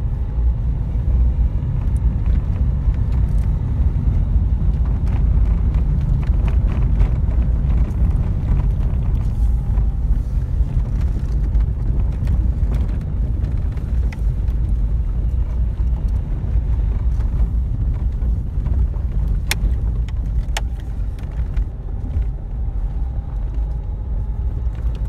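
Car driving on a gravel road, heard from inside the cabin: a steady low rumble of engine and tyres, with scattered small clicks and rattles.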